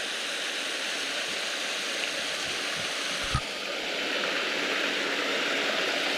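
Small waterfall splashing and rushing steadily into a rocky stream, with one brief knock about halfway through.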